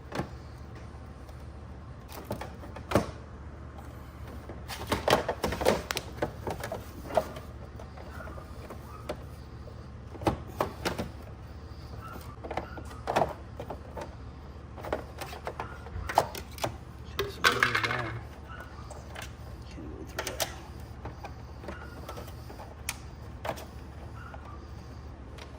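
Scattered clicks, taps and knocks of plastic grille parts and an LED light with its sandwich plate being handled and pressed together by hand, with a longer scrape about two-thirds of the way in, over a steady low hum.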